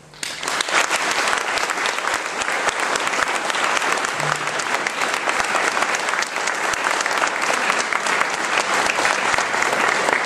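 Audience applauding, breaking out abruptly and holding steady.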